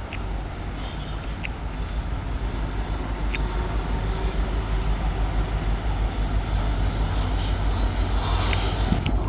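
An electric locomotive hauling a train of LHB passenger coaches approaches at speed. The low rumble of wheels on the rails grows steadily louder, with a steady high whine over it and a few faint clicks.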